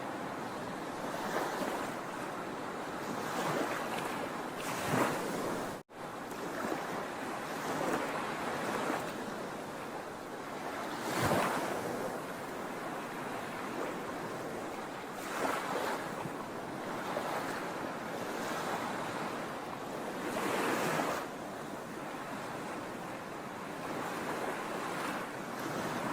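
Sea waves washing onto a shore: a continuous rush of surf with louder breaking swells every few seconds. There is a momentary dropout in the sound about six seconds in.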